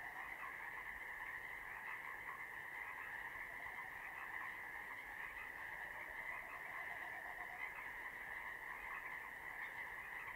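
Faint, steady chorus of many frogs calling together, a dense unbroken mass of calls.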